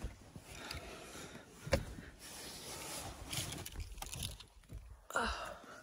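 Rustling and handling noises of someone climbing out of the back of a car, with one sharp click about two seconds in.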